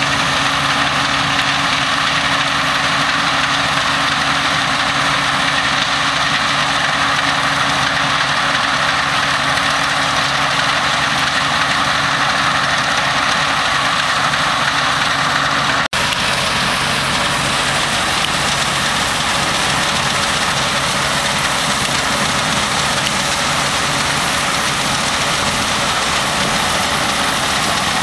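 Claas Consul combine harvester running while it harvests: a steady engine hum under the whir and rush of its cutting and threshing machinery. The sound breaks off for an instant about halfway through, and the engine hum is less prominent afterwards.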